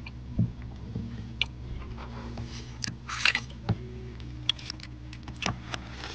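Scattered light clicks and rustles of a clear plastic food container and its snap-on lid being handled, over a faint steady hum.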